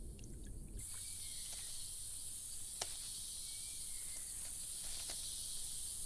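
Steady, high-pitched insect chorus, a constant hissing drone that comes in about a second in, with a few faint clicks and short chirps.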